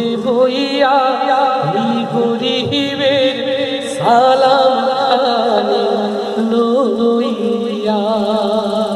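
A man singing a Bengali palligiti (folk song), drawing out long wavering notes with glides and vibrato but no clear words.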